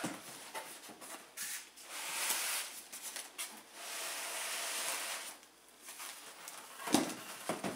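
A cardboard product box and its packaging being handled and unpacked: two long rubbing, sliding noises, then a couple of sharp knocks about seven seconds in.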